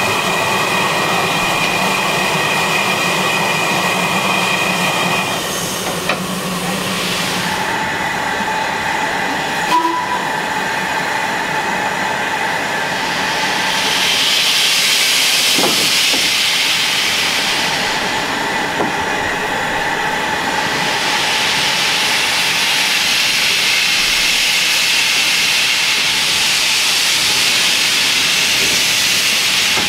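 LMS Ivatt 2MT tank steam locomotive starting a freight train, with steam hissing from its open cylinder drain cocks. The hiss swells loud about halfway through, eases briefly, then returns.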